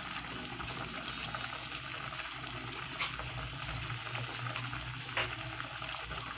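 A pot of sinigang, shrimp and water-spinach soup, at a rolling boil, bubbling steadily, with two sharp pops about three and five seconds in.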